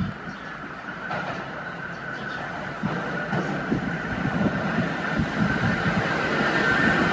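Subway train approaching on the track, growing steadily louder, its wheels clacking over rail joints under a steady high whine.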